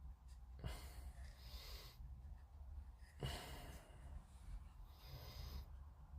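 A person breathing slowly and faintly, with two drawn-out breaths, the first about a second in and a longer one from about three seconds in.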